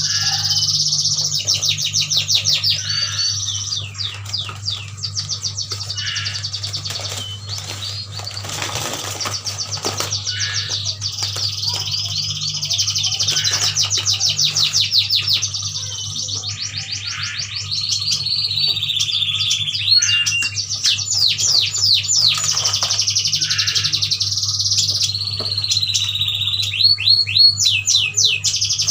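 Several Kalimantan yuhinas chirping and twittering without pause, in fast runs of sharp high notes and short rippling trills, over a steady low electrical hum.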